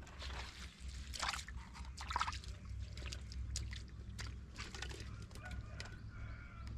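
Bare feet splashing through shallow muddy water and knocking on loose stones, in irregular short splashes and clicks, over a steady low rumble.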